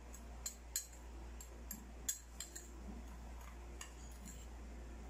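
Metal spoon stirring a dry mix of sugar, salt and Korean chili powder in a small ceramic bowl, giving a few light, irregular clinks against the bowl.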